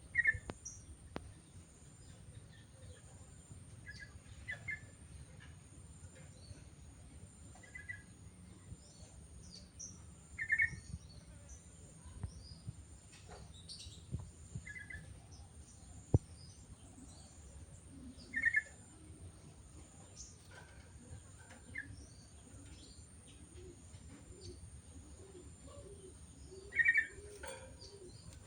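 Sooty-headed bulbul (cucak kutilang) giving short calls, a brief phrase of two or three notes every few seconds, with fainter high chirps between them.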